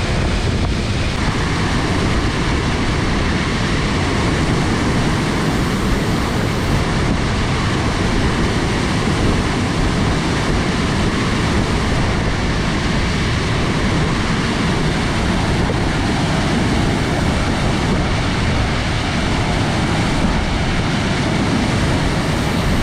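Waterfall pouring close to the microphone: a loud, steady rush of falling water.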